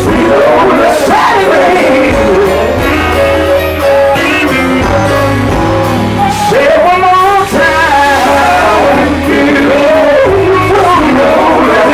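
Live gospel quartet music: several male voices singing through a PA, backed by an electric guitar and bass.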